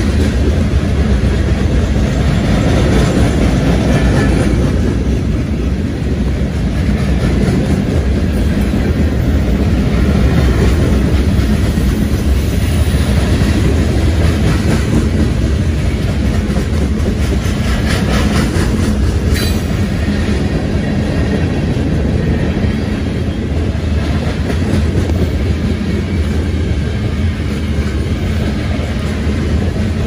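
Freight train cars rolling past close by: a steady rumble of steel wheels on rail, with a brief sharp clank a little past halfway.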